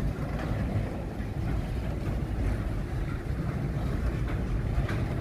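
Loaded freight train of flat wagons rolling past at close range: a steady low rumble of wheels on the rails, with a few faint clicks near the end.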